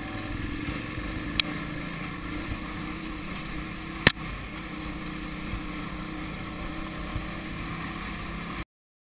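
Off-road motorcycle riding down a gravel track, heard from the bike itself: steady engine running mixed with wind and rumble on the microphone. Two sharp knocks, about a second and a half and four seconds in, and the sound cuts off suddenly near the end.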